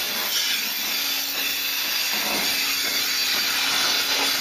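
Milking-parlour vacuum system running: a steady hiss of air drawn through the milker hoses and teat cups as the units are handled, over a steady low hum.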